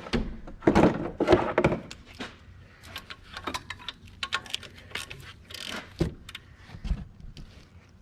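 Hand tools clinking and knocking against metal in the engine bay while the alternator's 12 mm adjusting bolt is cracked loose: irregular clicks and knocks, with a louder cluster about a second in.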